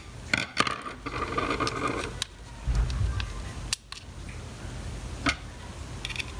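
Small, sharp clicks and a brief clatter of a plastic electric shaver casing, its screws and a small screwdriver being handled as the body screws are fitted, with a dull knock about three seconds in.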